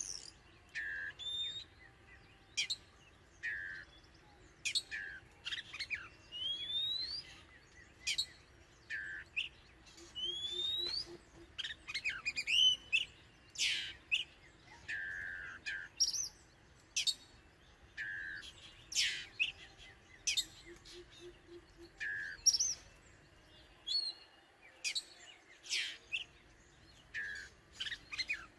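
Oriental magpie-robin singing: a varied run of short whistled notes, sharp downward sweeps and rising slurs, coming about once a second.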